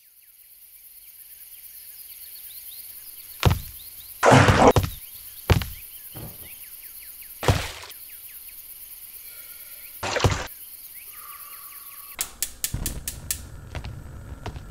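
Several heavy, sudden thuds and impacts over a steady high hiss. Near the end, a gas stove's igniter clicks several times in quick succession, and the burner catches with a low, steady flame rumble.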